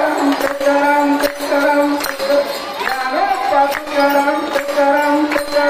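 Devotional group music of the Warkari procession: a held, gliding sung chant over a steady beat of sharp strikes, about two to three a second.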